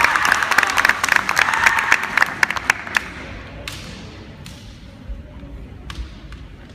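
Spectators clapping, a dense patter that dies away about three seconds in, followed by a few scattered sharp knocks.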